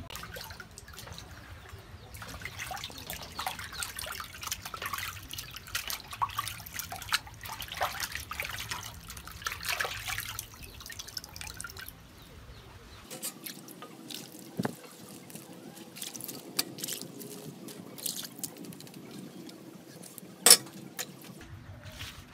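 Water boiling and bubbling in a large metal pot of noodles, with many small crackling splashes and drips. Near the end comes a single sharp knock.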